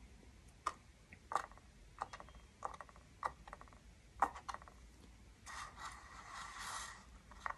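A series of light, sharp clicks and taps, about one every half second to a second, then a soft scraping sound lasting about two seconds near the end.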